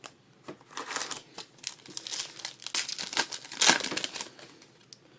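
A trading card pack's plastic wrapper being torn open and crinkled in the hands: an irregular run of crackling and rustling that dies away about a second before the end.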